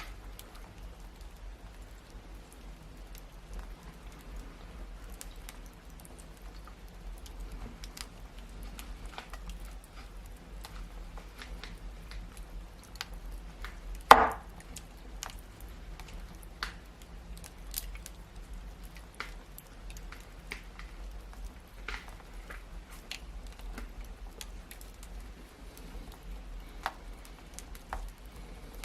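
Wood fire crackling with scattered small pops and snaps, and one loud pop about halfway through.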